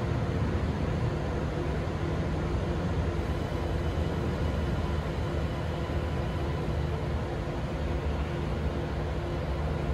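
Sydney Metro Alstom Metropolis electric train pulling slowly out of the platform on a test run: a steady low hum with a few faint steady tones over a constant hiss.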